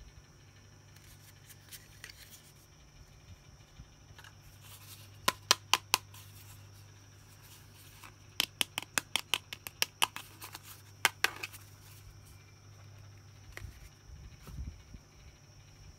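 Sharp clicks and taps of small plastic toy pieces and packaging being handled and unboxed, coming in clusters: four about five seconds in, then a quick run of clicks a few seconds later. A low steady hum lies under it.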